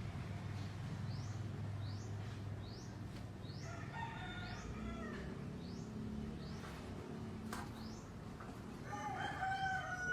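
Two held animal calls, a short one about four seconds in and a longer one near the end, over short rising chirps repeating about three times every two seconds and a low hum.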